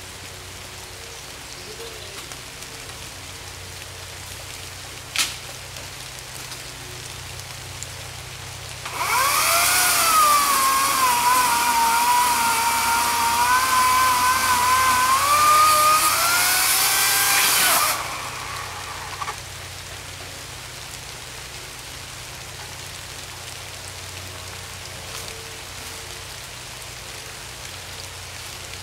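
Greenworks 18-inch 14.5-amp electric chainsaw starts about nine seconds in, a loud motor whine that sags in pitch as it cuts into a log and rises again before it stops about nine seconds later. Steady rain hiss throughout, with a single sharp knock about five seconds in.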